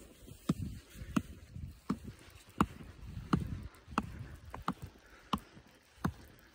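Ski-touring gear on a steady uphill skinning climb: a sharp click about every 0.7 s, one per stride, from boots and bindings or pole tips striking, over a low swish of skis sliding on the snow.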